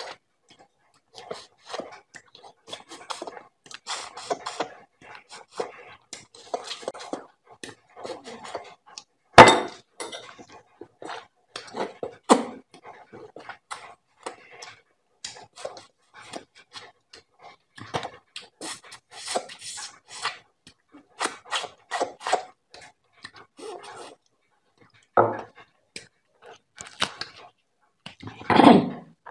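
Close-miked eating sounds: wet chewing and lip-smacking as roti soaked in paya broth is eaten by hand, a dense run of short irregular mouth clicks. One sharp click about nine seconds in is the loudest, and a longer, fuller wet mouth sound comes near the end.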